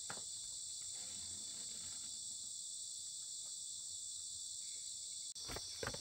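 Steady high-pitched insect chorus, with a few sharp knocks near the end.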